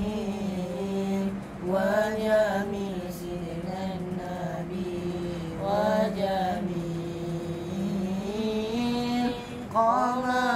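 A boy's solo voice singing an Arabic devotional nazam unaccompanied, drawing out long held notes with wavering melismatic ornaments rather than clear words. The melody swells upward three times, with short breaths about one and a half seconds in and near the end.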